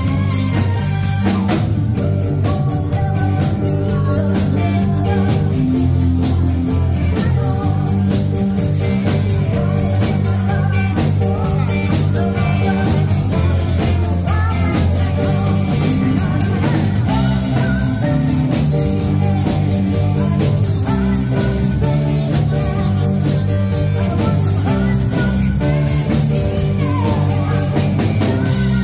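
Live band playing amplified: a woman singing into a microphone over drum kit and guitar.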